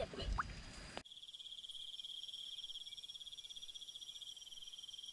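Steady high-pitched insect trill with a fine rapid pulse. It cuts in abruptly about a second in, after a moment of mixed outdoor sound.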